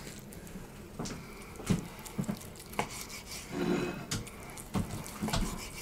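Kitchen knife slicing a grilled bavette steak on a wooden cutting board: a handful of short taps and knocks as the blade meets the board.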